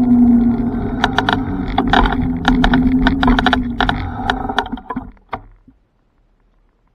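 A small ride-on vehicle's drive hums steadily as it slows, then rattles and clicks while pulling up and stopping. The sound dies away about five and a half seconds in.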